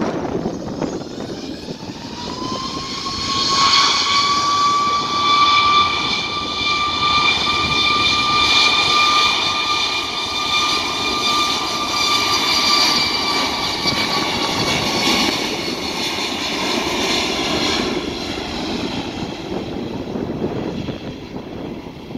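Boeing 737 MAX 8's CFM LEAP-1B turbofans running as the jet moves along the runway: a rising fan whine about two seconds in settles into a steady high whine with a roar beneath. The sound fades as the jet moves off into the distance.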